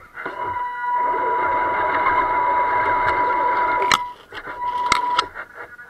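Electric motor and gears of a radio-controlled scale rock crawler running under throttle with a steady high whine. The whine stops just before four seconds with a click and comes back briefly about a second later.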